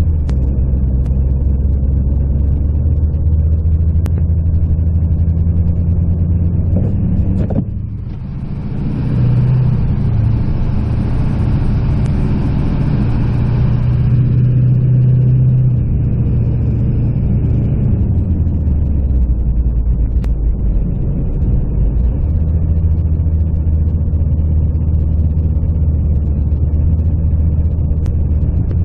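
Duramax V8 turbodiesel pickup driving on slushy snow-covered roads, heard from inside the cab: a steady low engine drone. About eight seconds in the engine note dips and changes, and a hiss of road noise swells for several seconds before the drone settles again.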